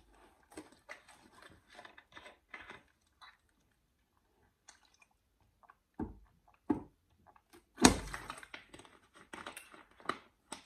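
Close-up eating sounds: chewing and mouth smacks, then, after a short quiet stretch, drinking from a plastic water bottle with the plastic crackling and several knocks, the loudest a sharp knock a little before eight seconds in.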